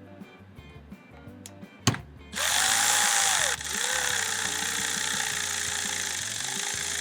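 A power tool runs from about two and a half seconds in: a loud, steady whir and hiss whose pitch rises and falls. It dips briefly about a second after starting. Before it there is a single sharp click.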